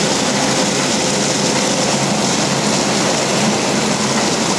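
Automatic gantry car wash running: its rotating brushes scrub the car under water spray, over a steady low hum from the machine's motors.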